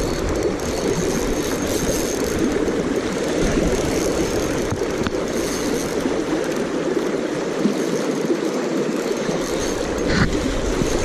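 Creek water rushing steadily over a shallow riffle, with a short knock about ten seconds in.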